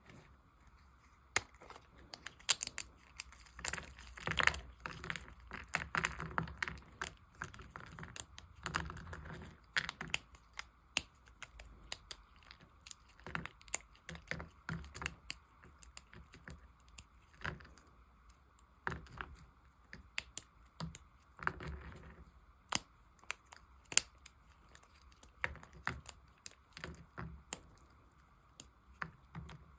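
Knife carving into dry bar soap: crisp, irregular cracks and snaps as the brittle soap breaks away, with a few short crunchy scraping strokes.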